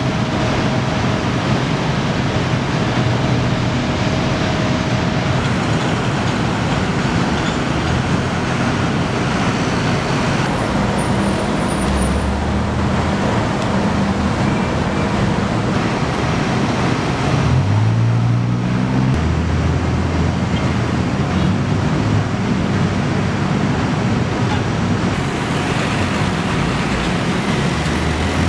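City road traffic running steadily, with engine hum from cars and buses. About two-thirds of the way through, one heavy engine rises in pitch as it pulls away, then holds steady.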